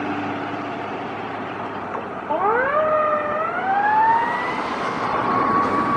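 A Federal Q mechanical fire siren winds up on a responding fire squad truck, starting about two seconds in. Its pitch climbs, levels briefly, then keeps rising over the rumble of the truck on the road.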